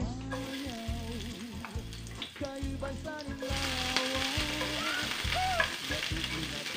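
Sliced onions sizzling as they sauté in a stainless steel pot, stirred with a wooden spatula. The sizzle grows louder about a third of the way in.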